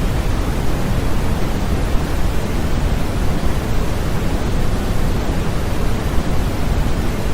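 Steady, unbroken white-noise sleep sound: an even hiss with no changes, weighted toward the low end like pink noise.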